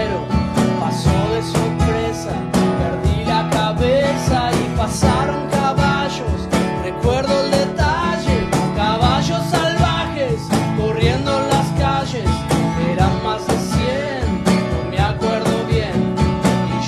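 Acoustic band playing an instrumental passage: strummed acoustic guitar, an acoustic bass guitar and a cajón keeping a steady beat, with a melody line that bends in pitch.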